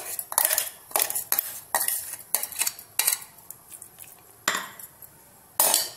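A metal spoon clinking and scraping against a steel kitchen utensil, likely the mixer jar holding the coarsely ground dried dates. A quick run of knocks comes first, then a few slower scrapes, and the loudest comes near the end.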